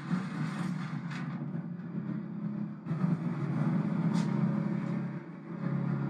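A low, steady rumble from a television drama's soundtrack, heard through the TV's speaker.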